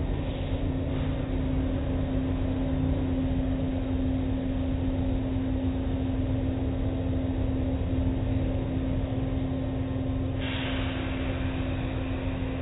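Automatic car wash running: a steady low rumble and machine hum as cloth strips and foamy water wash over the vehicle, with a higher hiss joining about ten seconds in.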